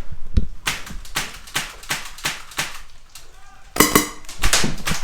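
Airsoft rifle firing a string of single shots, about three a second, with a sharp crack on each shot. After a short pause, a few quicker shots come near the end.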